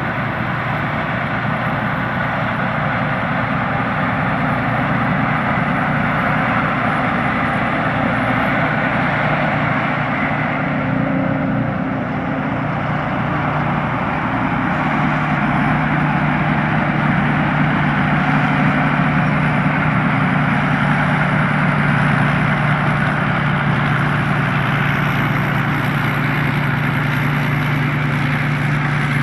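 Thai Seng Yont combine harvester running steadily while harvesting rice: a continuous engine drone under a dense machinery clatter. The low engine note gets stronger about halfway through.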